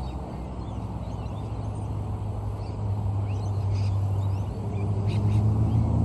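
A low engine drone, growing steadily louder, with small birds chirping over it.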